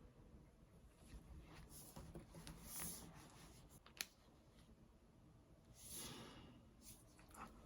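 Near silence with faint handling noises from work on the tablet: a couple of soft swishes and one sharp click about four seconds in.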